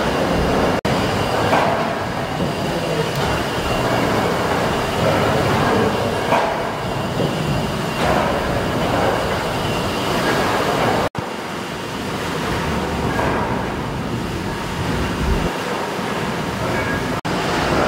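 Victorian compound steam beam engine running: a steady mechanical clatter and rumble from its moving gear. The sound drops out for an instant three times.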